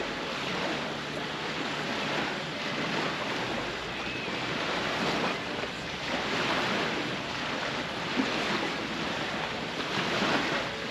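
Small lake waves washing on the shore, with wind blowing on the microphone: a steady rushing that swells and eases every second or two.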